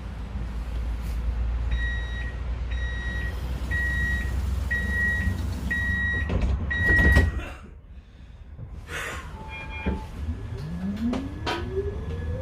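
Tram door warning beeps: six evenly spaced high beeps, then the doors close with a thump. A few seconds later the electric traction motors give a rising whine as the tram pulls away.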